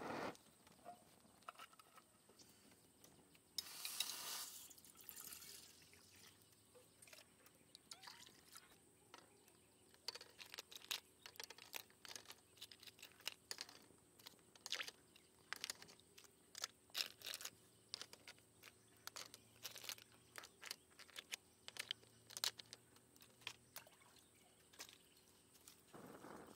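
A breath blown onto embers about four seconds in, then a pot of water simmering over a wood fire, with irregular pops and crackles throughout.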